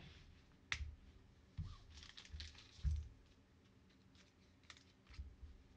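A few soft, scattered taps and clicks as trading cards are handled and set down on a table mat.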